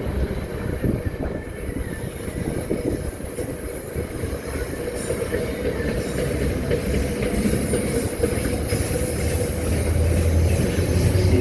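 NJ Transit commuter train pulling out of the station, its wheels rumbling over the rails with scattered clicks, growing louder near the end as a low hum comes in.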